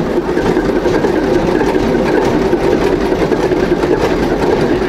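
Vintage engine running steadily with an even, continuous mechanical clatter.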